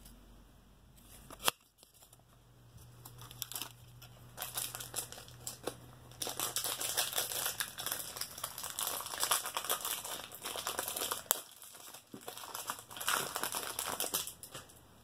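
Foil wrapper of a trading card pack crinkling and tearing as it is opened and handled, in irregular bursts of crackling. A single sharp click comes about a second and a half in.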